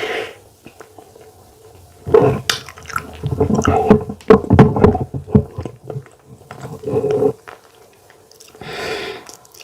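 Close-up mouth sounds of a person eating fufu: wet chewing and lip smacking, coming in bursts that are densest through the middle.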